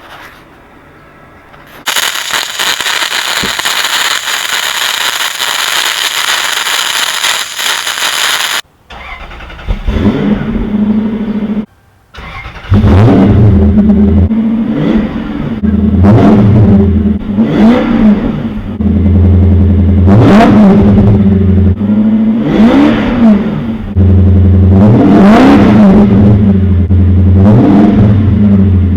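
Lexus SC400's V8, with gutted catalytic converters and the muffler cut out, starting and then being revved in repeated blips, about one every two to three seconds, loud through the open exhaust. A steady hiss-like noise fills several seconds before the engine starts.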